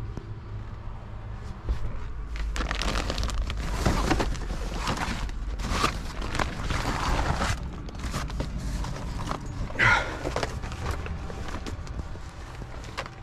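Tie-down chains and binders being handled while chaining down a load: irregular metal clanks and rattles, the loudest near the end, over an engine idling low in the background.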